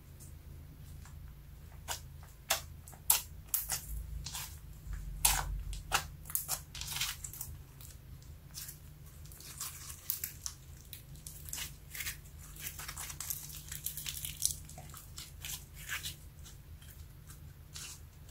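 Sticky glossy slime mixed with make-up being squeezed and folded by hand, giving irregular sticky crackles and pops, thickest through the middle.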